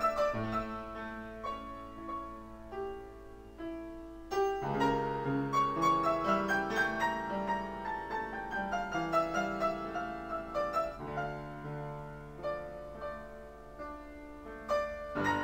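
Instrumental background music with held notes, growing fuller about four and a half seconds in.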